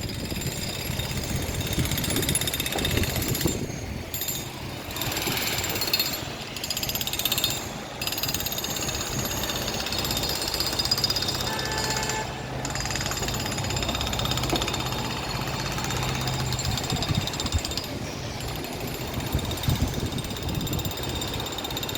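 Jackhammer hammering rapidly and continuously.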